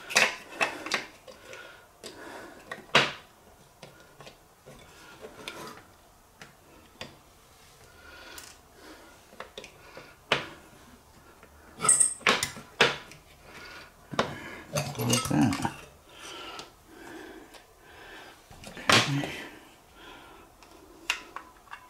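Hard plastic ice-maker parts being handled and fitted together: scattered clicks, knocks and light rattles. The sharpest come just after the start, about 3 s in, and around 10, 12, 15 and 19 s.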